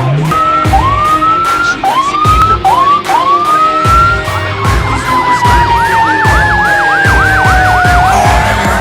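Fire truck sirens sounding together on an emergency response: a run of short rising whoops, then a fast yelp over a long tone that slides slowly down in pitch, with engine rumble beneath.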